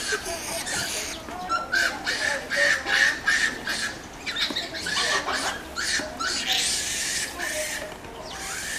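A large troop of Japanese macaques calling over one another at feeding time: many short overlapping squeaks and chirps, some rising and some falling.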